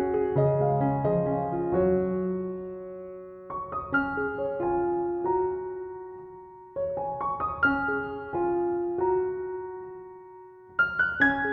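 Background music: soft piano playing slow phrases of struck notes that ring and fade.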